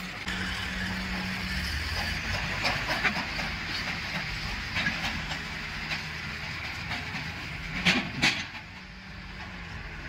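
Diesel engines of farm tractors and a backhoe loader running steadily, with steel tractor trolleys clanking and rattling now and then. There are two loud metallic clanks in quick succession near the end, after which the engine noise gets quieter.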